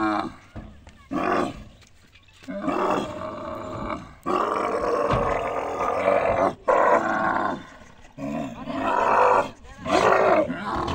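Dromedary camels bellowing and groaning in a run of about six long, throaty calls, each a second or two, as they are forced down and tied in a truck bed.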